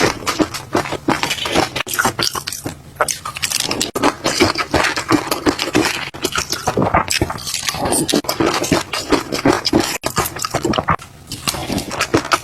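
Close-miked eating of fish roe: continuous wet crackling and clicking with some scraping, as the roe is chewed, with brief pauses about 4 and 10 seconds in.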